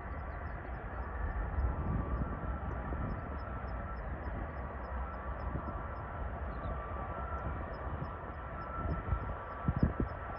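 Distant jet airliner engines running with a steady rumble and a high whine. Gusts of wind buffet the microphone near the end.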